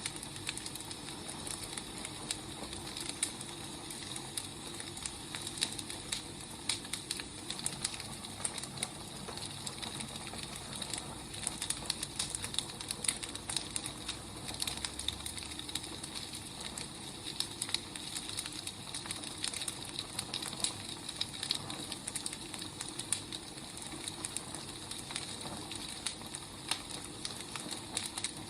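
Firewood burning: a steady hiss with frequent small crackles and pops.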